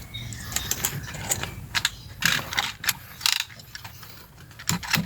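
Irregular ratcheting clicks from the locking mechanism of a Calya/Sigra seatbelt retractor being worked by hand. The retractor is jamming.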